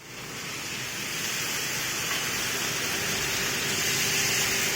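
Food sizzling in hot oil in a pan: a steady hiss that fades in over the first half second.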